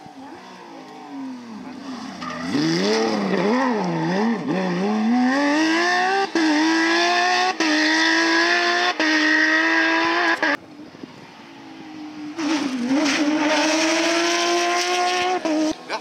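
Porsche 997 GT3 rally car's flat-six engine revving up and down, then climbing to high revs and held there with three brief breaks. About ten seconds in the sound cuts off abruptly, and another GT3 is heard accelerating hard, its note rising.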